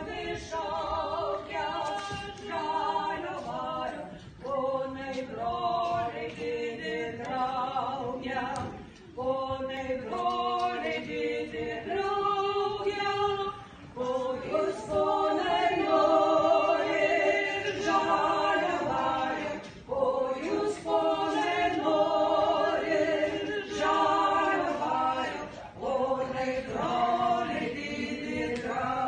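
Women's folk ensemble singing a folk song together in chorus, in long sung phrases broken by short pauses every five or six seconds.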